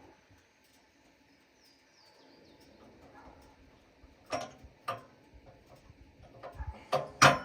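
Quiet background with a faint bird chirp about two seconds in. Later come two sharp clicks and then a quick run of louder knocks near the end.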